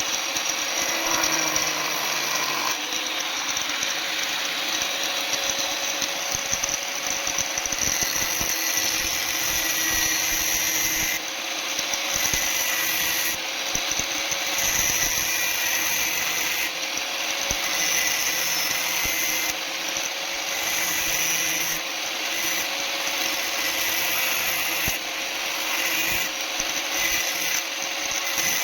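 Electric power tool running continuously, its sound shifting every few seconds as the load on it changes.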